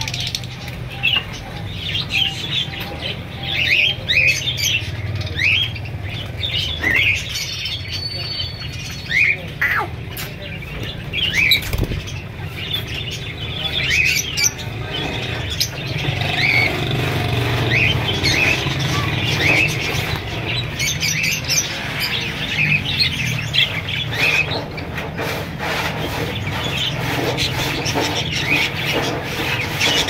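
A roomful of caged budgerigars and lovebirds chirping and chattering: many quick, high chirps rising and falling in pitch, over a steady low hum.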